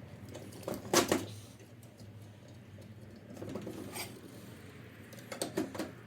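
Clicks and knocks of hard objects being handled, in three short clusters, the loudest about a second in, over a steady low hum.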